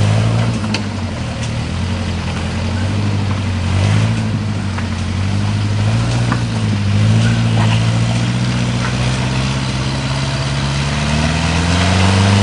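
Off-road vehicle's engine running steadily at low revs, with a few faint clicks; the revs climb about eleven seconds in.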